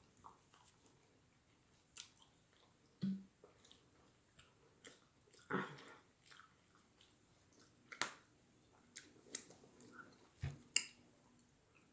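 A person eating baked turkey wing meat close to the microphone: faint, irregular wet mouth clicks and chewing smacks, with a short low thump near the end.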